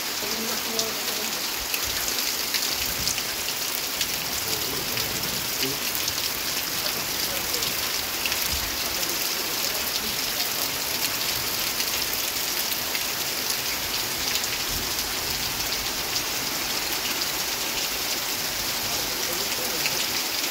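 Heavy rain falling steadily: a dense, even hiss of countless drops with a fine patter.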